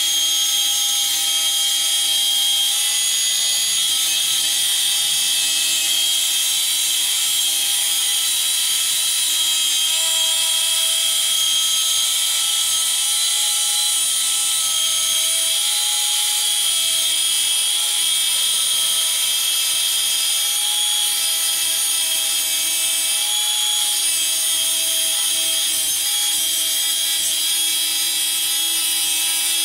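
Angle grinder with a cut-off disc, guided by a homemade base plate, cutting a long straight line through sheet steel. The motor runs at full speed with a steady high whine and the hiss of the disc biting the metal.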